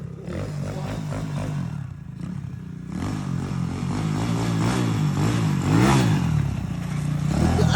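140cc motorcycle engine running, its revs rising and falling several times, with the new stator coil fitted.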